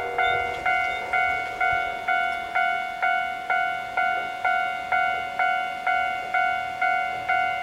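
Japanese level-crossing warning bell ringing in a steady rhythm of about two strokes a second: the crossing is active, warning of an approaching train.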